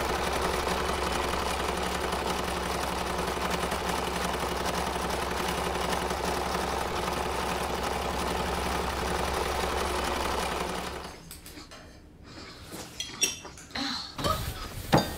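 A machine running with a steady whir and a low hum, which stops about eleven seconds in; then a few light clinks of cutlery on plates.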